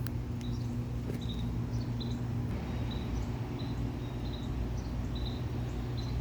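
A cricket chirping outdoors: short high chirps, all at the same pitch, repeating about once a second over a steady low hum.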